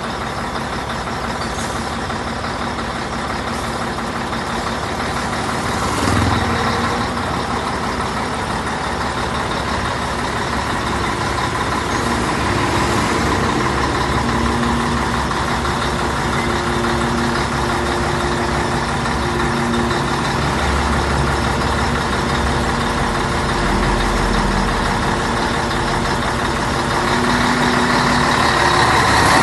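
Scania 113 truck's six-cylinder diesel rumbling, with the rattly exhaust note Brazilian truckers call 'castanhado'. The engine note varies, swelling about six seconds in and again near the end.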